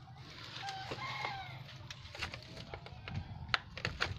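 A chicken clucking a few times, its short calls strongest about a second in, with scattered sharp clicks and knocks, the sharpest near the end.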